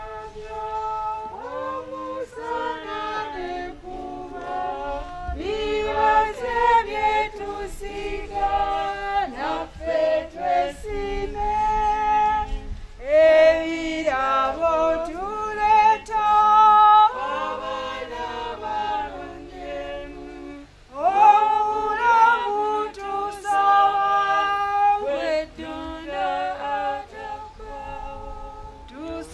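A group of voices singing a hymn, women's voices prominent, in long held notes with short breaks between phrases.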